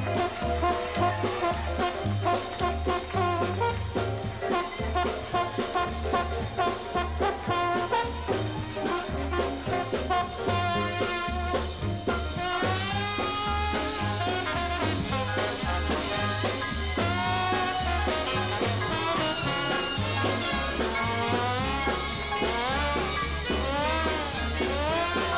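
Live swing jazz band playing over a steady bass-and-drums beat, with a trombone solo in front. From about halfway, the trombone plays slides that glide up and down in pitch.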